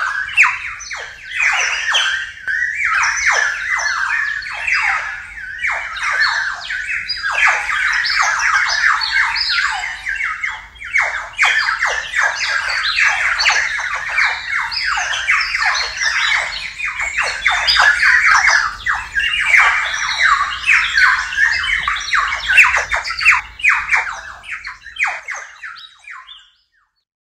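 Water-filled clay bird whistle warbling in dense, rapid, overlapping chirps that imitate nestling birds, digitally processed and layered. It fades out near the end.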